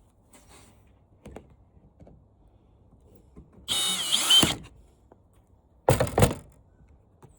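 Parts of a flat-screen TV being handled: a short scrape with a squeal, like metal or plastic sliding, about four seconds in, then a quick cluster of knocks and thunks about two seconds later, with a few faint clicks between.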